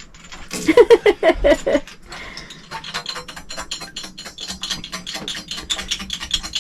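Rapid clicking and rattling of a jiggle siphon's marble valve as the siphon is pumped to get water flowing, starting about two seconds in.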